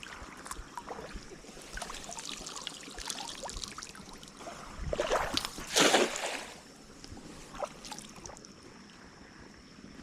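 Water splashing and dripping as a cast net is hauled in from a creek, with a louder stretch of splashing about halfway through.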